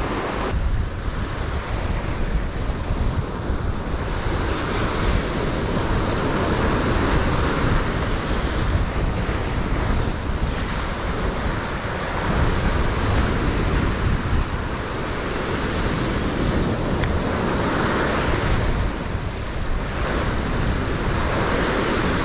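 Ocean waves washing in on a rocky shore, swelling and easing every few seconds, with wind rumbling on the microphone.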